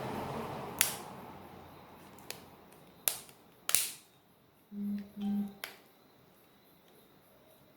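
Five sharp plastic clicks and snaps as a Samsung Galaxy A70's back cover is handled and pressed into place. About five seconds in come two short low buzzes.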